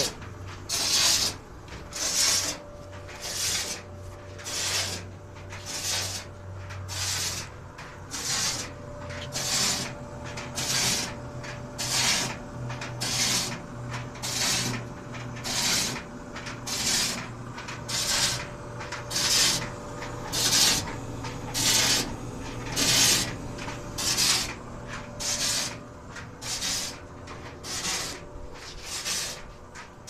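White Westinghouse clothes dryer running empty, its motor humming under a loud, regular scraping rub that comes round about three times every two seconds: the noise fault of the drum bearing that is under repair.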